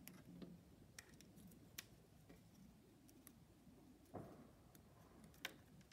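Near silence, with a few faint sharp clicks and a soft thump from handling a glue stick and a small piece of card while gluing on a paper triangle.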